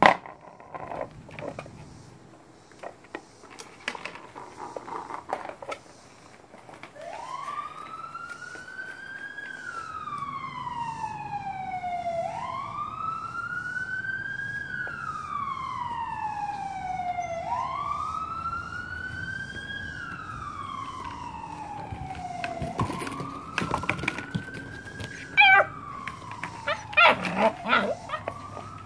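Siren wailing, rising and falling in long sweeps about every five seconds, starting about seven seconds in. Near the end, puppies give short yips over it.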